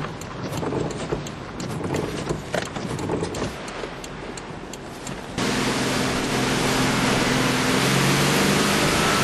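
Hurricane wind and rain noise on the microphone, with many scattered sharp ticks. About two-thirds of the way through it jumps abruptly to a louder, steady roar of wind with a low steady hum beneath it.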